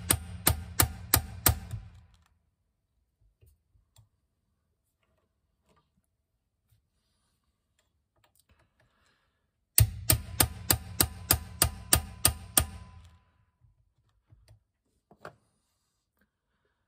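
Hammer tapping on a drift against the gearbox, sharp metallic taps with a dull thud under each, about three to four a second. One run stops about 2 s in, and a second run of about a dozen taps starts near the middle and lasts about three seconds.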